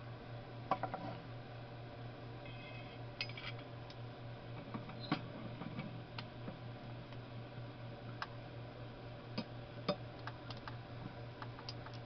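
Scattered light metallic clicks and taps from handling the metal vulcanizing clamp set over a soda-can alcohol stove, above a steady low hum.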